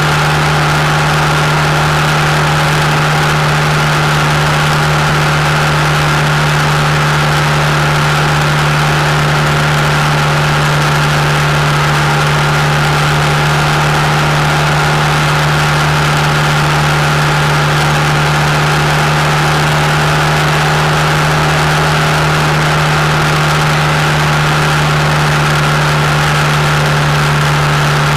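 Honda Interceptor 700 V4 motorcycle engine running steadily at highway cruising speed, with wind and road rush over it.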